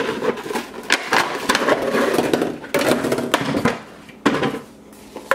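Plastic blister pack of pop tube fidget toys being torn open by hand, crackling and crinkling with many irregular sharp clicks, then quietening near the end.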